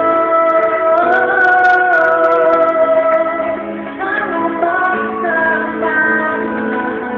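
A woman singing a slow Filipino love ballad into a handheld karaoke microphone over a backing track, holding long notes.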